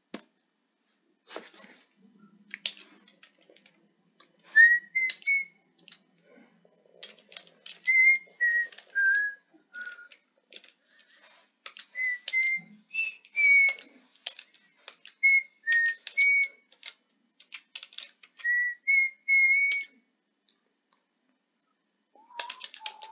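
A person whistling a tune of short notes that step up and down, mixed with the clicking of a computer keyboard and mouse as text is typed.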